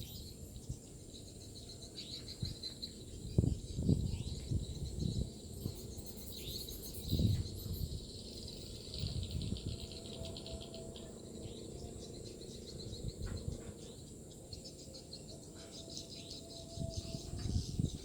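Edible-nest swiftlets twittering, a dense run of rapid high chirps, with irregular low thumps and rumbles underneath, loudest a few seconds in, around the middle and near the end.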